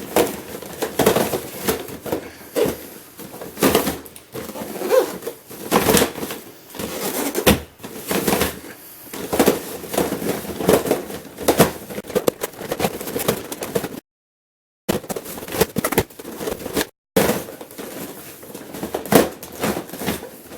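A 30 cm 3x3 puzzle cube's layers being turned by hand to scramble it: irregular plastic clacks and knocks with rustling handling noise in between. The sound drops out to dead silence twice, briefly, about two-thirds of the way through.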